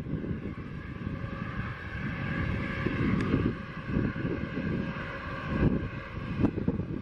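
Business jet's rear-mounted turbofan engines giving a steady whine of several tones while it taxis on the runway. Gusty wind buffeting the microphone is the loudest sound.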